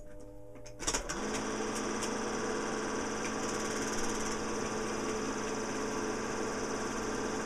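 Home-movie film projector starting up about a second in, then running with a steady mechanical whir and hum.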